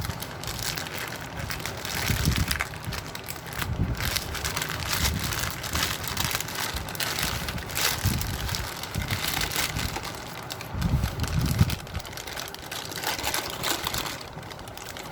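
Plastic poly bag packaging crinkling and rustling as it is handled and opened, with irregular crackles and soft thumps of handling.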